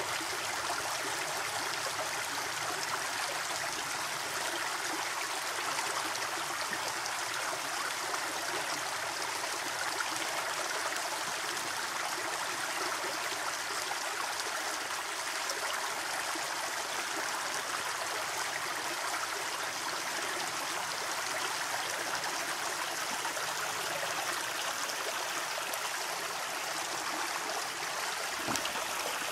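Small, shallow stream flowing over stones, a steady, even rush of water.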